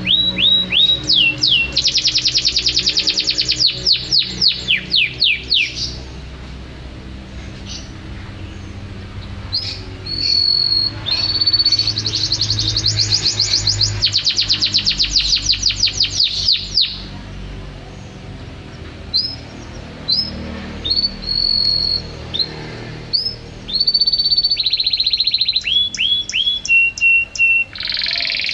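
Domestic canary singing in full song: phrases of fast, rattling trills alternate with held whistled notes and quick down-slurred notes. Long trill runs come a couple of seconds in, again at about twelve seconds, and briefly near the end, with short quieter pauses between phrases.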